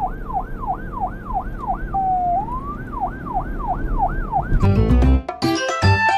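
Police car siren sound effect: a fast wail sweeping up and down about three times a second, pausing on one steady tone and a slow rise about two seconds in. It stops at about four and a half seconds, when cheerful children's music with a beat begins.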